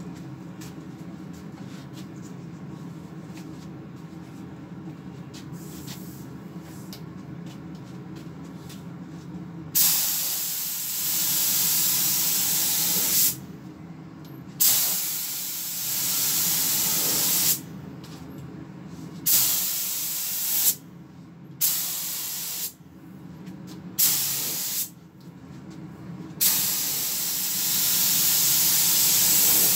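HVLP spray gun spraying acrylic primer: loud air hiss in about six trigger-pulled passes of one to three seconds each with short gaps, starting about ten seconds in. Before that only a low steady hum.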